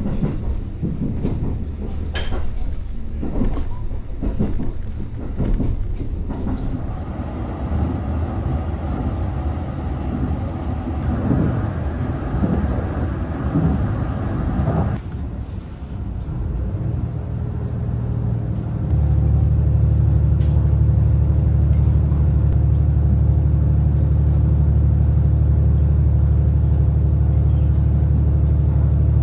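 Passenger train running, heard on board: scattered knocks and rattles over a low running noise for about the first half. About two-thirds of the way in it becomes a loud, steady low rumble.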